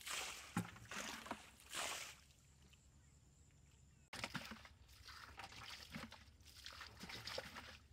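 Muddy water splashing as a metal bucket is swung through it and emptied, in a few separate splashes; after a short lull, more irregular splashing and sloshing in shallow water.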